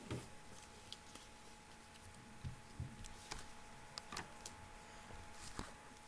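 Origami paper being folded and creased by hand: faint, scattered crinkles and ticks over a steady faint hum.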